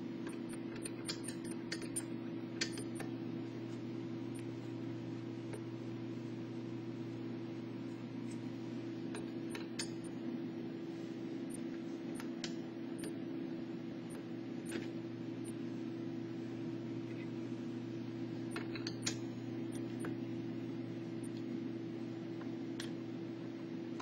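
Scattered faint metallic clicks and taps of a Phillips screwdriver and screws being worked out of the back panel of a PC case, at irregular intervals over a steady low hum.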